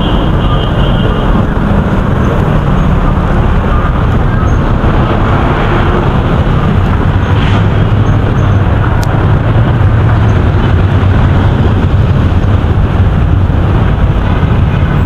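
Steady road traffic noise with a small truck's engine running close by; its low hum grows stronger about halfway through.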